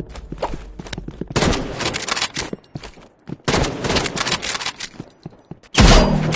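Two bursts of rapid sharp cracks, like automatic gunfire, then a single loud low bang near the end.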